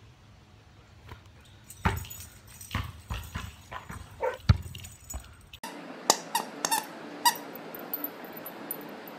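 A dog whining in short squeaky bursts among thumps close to the microphone. About halfway in it cuts to a steady hiss with a few sharp clicks and squeaks.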